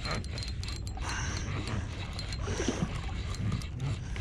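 Spinning reel being cranked in against a heavy fish, over wind rumbling on the microphone and water moving around the boat.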